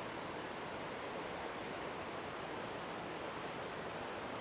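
Steady, even rushing noise with no distinct events: the wash of rain and distant waterfalls in a rainstorm.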